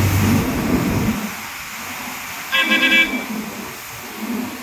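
The scissor lift's hydraulic power-pack motor hums, then fades out about a second in. About a second and a half later a brief, stuttering high-pitched tone sounds, like a short horn toot.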